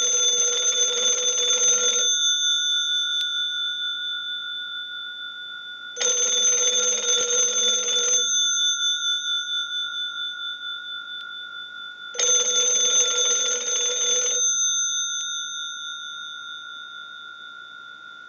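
Western Electric bell box's twin gongs ringing, driven by a telephone test set on its low ring setting: three bursts of rapid clanging, each about two seconds long and about six seconds apart, like an incoming call, with the gongs ringing on and fading between bursts. Ringing on the low setting is the final checkout after repair and conversion.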